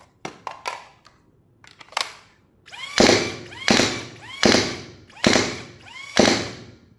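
AIT Lightning foam dart blaster firing five quick bursts about three-quarters of a second apart, emptying its ten-dart magazine, each shot with a brief rising and falling whine from the mechanism. Light handling clicks come in the first second.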